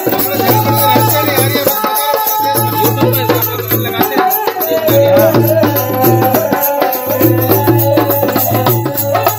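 Rajasthani folk music played live: a ravanahatha, a bowed folk fiddle, carries a sliding, sustained melody over the rhythm of a dholak barrel drum.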